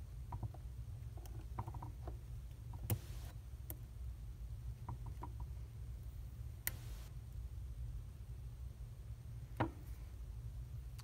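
Surgical instrument handling on a model jaw: scattered faint clicks and ticks from a needle holder and tissue forceps as a suture is passed and pulled through, with a few sharper ticks and brief scrapes, over a steady low hum.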